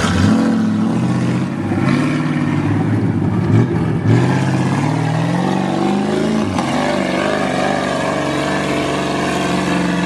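Off-road vehicle's engine revving under load, its pitch climbing and dropping in repeated surges, then holding steadier in the last few seconds.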